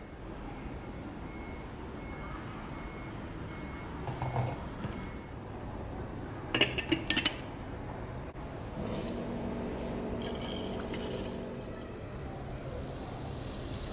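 Glass lid being set onto a glass kettle, clinking sharply several times in quick succession about seven seconds in, after a softer knock of glassware earlier. A steady low hum follows from about nine seconds in.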